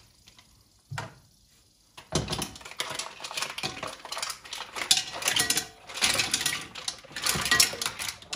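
Raw mussels in their shells tipped from a bowl into a metal frying pan, the shells clattering and rattling against each other and the pan in several bursts from about two seconds in.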